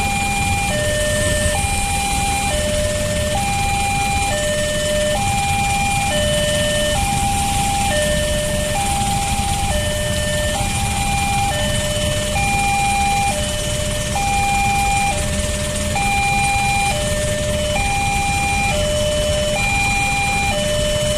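Railway level crossing warning alarm sounding continuously as a two-tone electronic high-low signal, each tone held for about a second and repeating evenly: the warning that a train is approaching and the crossing is closed. Underneath is the low running of the engines of the waiting cars and motorcycles.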